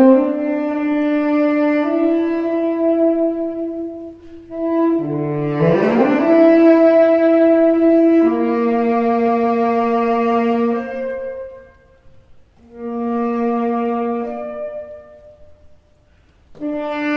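Tenor saxophone soloist with a small chamber ensemble of winds and strings playing slow, long-held chords. A rising glide comes about five seconds in, the music nearly stops around twelve seconds, a softer phrase follows and fades, and the ensemble enters again just before the end.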